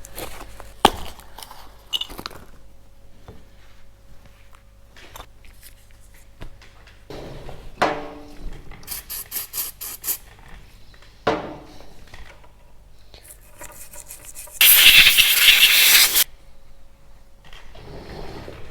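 Hand work on motorcycle brake parts and tools: scattered clicks, metal scrapes and rattles, then a loud hiss lasting about a second and a half, about three-quarters of the way through.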